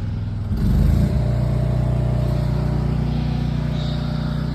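A motor vehicle engine running steadily, with a brief surge in loudness about half a second in before it settles back to an even run.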